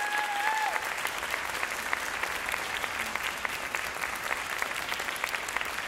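Audience applauding, a steady dense clapping, with one short high-pitched call from the crowd near the start.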